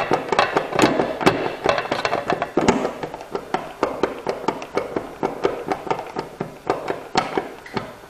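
Screw being driven by hand with a Phillips screwdriver through a plastic smoke detector base into a plastic wall anchor: a fast run of sharp clicks and squeaks, thinning out after about three seconds.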